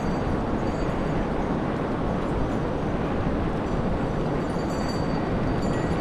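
Sea surf breaking on a beach: a steady, even rush of waves with no single crash standing out.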